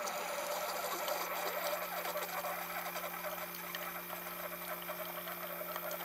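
Single-serve pod coffee maker brewing: a steady pump hum under a thin stream of coffee trickling into a ceramic mug.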